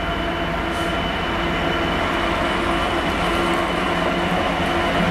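Class 66 diesel-electric freight locomotive's two-stroke V12 diesel engine running as it slowly passes on a freight train, a steady drone that grows slightly louder as it draws near.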